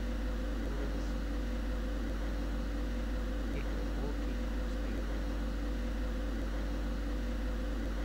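Steady low hum with a constant tone over faint hiss, unchanging throughout, with no distinct knocks or other events.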